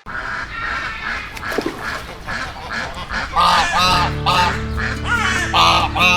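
Waterfowl calling: a quick run of short nasal calls, then louder honking calls from about three and a half seconds in. Background music with held notes comes in under the calls at about the same point.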